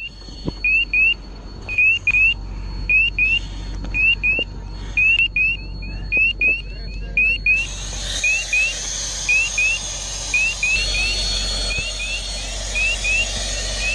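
Short rising electronic chirps, often in pairs, repeating irregularly every half second to a second, over a thin steady high tone. About halfway through the high tone stops and a loud hiss sets in under the chirps.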